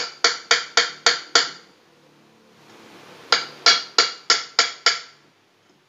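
Ball-peen hammer tapping lightly on the top of a car's front shock absorber tube, seating the part there so it sits tight. Two runs of about six ringing metallic taps, roughly three to four a second, with a pause of about a second and a half between them.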